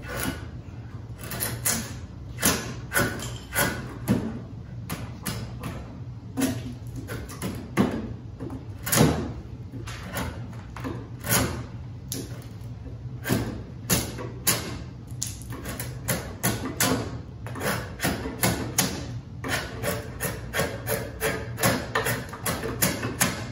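Draw knife pulled bevel-up along a piece of white oak, cutting off curls in short scraping strokes, about one a second with some in quick succession.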